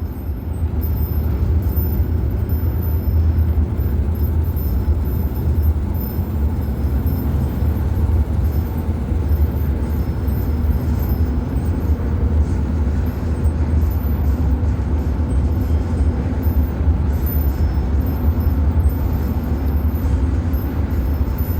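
Steady road and engine rumble inside a vehicle cabin while driving at highway speed.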